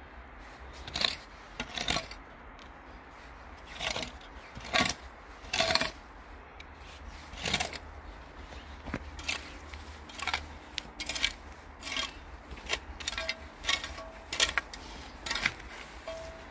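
Small metal hand scoop scraping dry soil and dead grass, in short repeated strokes that come irregularly at first and more quickly in the second half.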